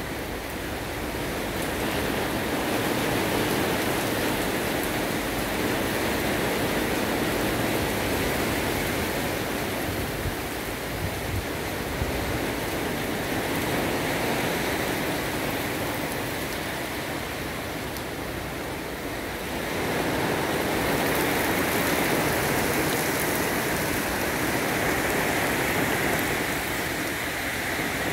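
Rain falling steadily, a continuous hiss that swells louder about twenty seconds in.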